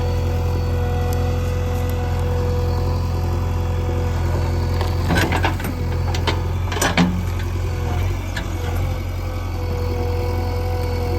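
JCB 3DX backhoe loader's diesel engine running steadily. Over it, a few sharp cracks and snaps come about halfway through as wood and roots break.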